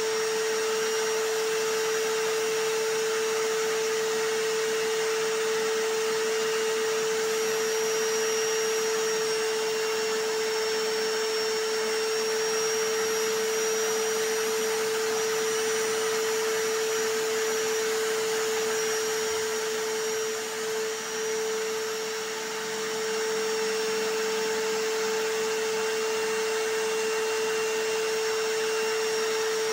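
Vacuum cleaner running steadily, layered with a hammer drill as a continuous white-noise track: an even hiss with a strong steady whine, dipping briefly twice about two-thirds of the way through.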